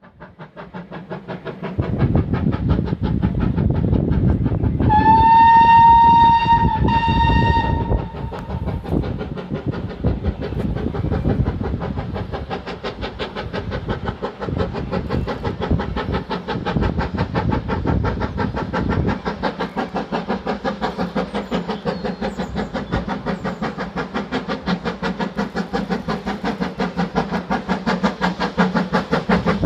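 Steam locomotive whistle sounding two blasts about five seconds in, the first longer, over a steam train running with a fast, steady rhythmic beat.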